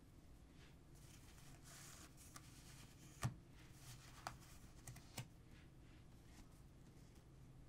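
Heavy-paper flash cards handled softly: a faint sliding rustle, then a few light taps and clicks of the card edges.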